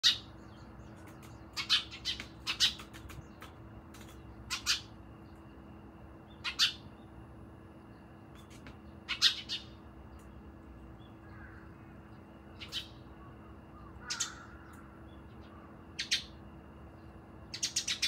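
Eurasian tree sparrows chirping: short, sharp chirps, singly or in quick clusters of two or three, every second or two.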